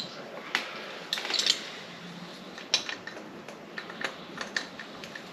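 Small metal carburetor parts clicking and clinking as they are handled and fitted back together. The clicks come irregularly, with a quick cluster about a second in.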